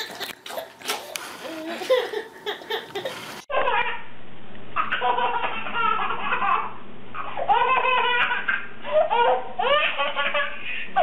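Babies laughing hard: first a toddler's belly laughs, then after a cut about three and a half seconds in, a baby's repeated high squealing laughs that rise and fall in pitch.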